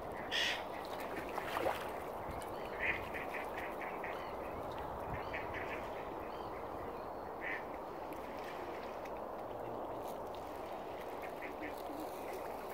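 Ducks quacking: a quick run of short quacks about three seconds in, with single quacks near the start and near the middle, over steady outdoor background noise.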